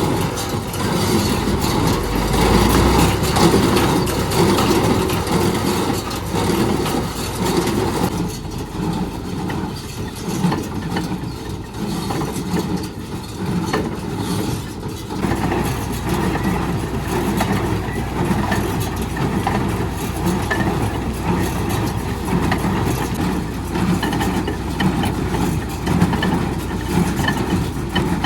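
Tractor engine running while it powers a Welger AP51 baler. The sound changes about 8 seconds in and again about 15 seconds in.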